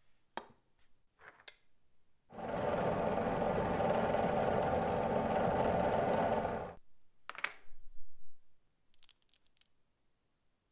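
A small power tool's motor runs steadily for about four and a half seconds, with a few short clicks and taps before and after it.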